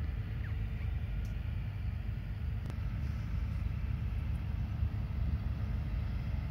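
Steady low rumble with no rhythm or tones, such as wind buffeting the microphone or distant traffic would make.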